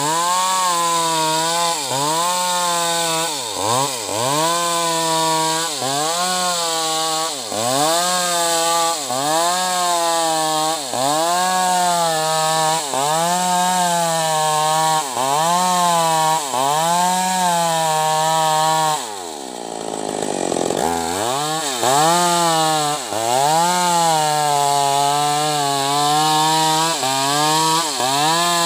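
VTS MS 381 two-stroke chainsaw ripping an acacia log lengthwise, the engine at high revs under load, its pitch dipping and recovering about once a second as the chain bites. About two-thirds of the way through the engine falls almost to idle for a second or two, then revs back up and goes on cutting.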